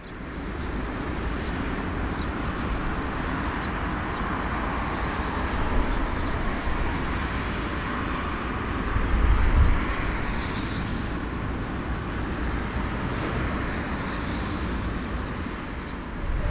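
Four-engined Airbus A340-300 taxiing, its CFM56 jet engines running at low thrust: a steady rumble and hiss that swells briefly about nine seconds in.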